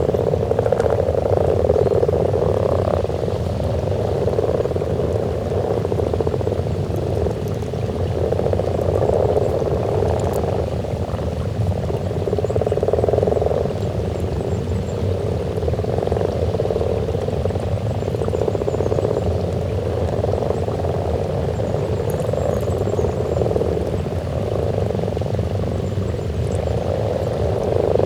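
A breeding chorus of common frogs croaking at a spawning pond: many overlapping low croaks blend into one continuous sound that swells and eases every few seconds.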